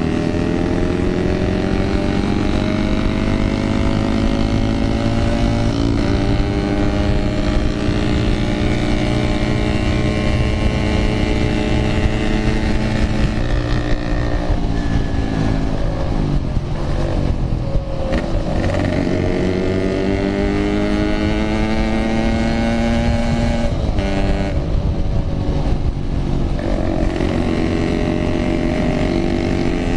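Yamaha RX King two-stroke single-cylinder motorcycle engine running under load while riding, its pitch climbing through the revs and dropping off sharply about halfway through and again a few seconds later before climbing back. The rider calls the bike's sound hoarse.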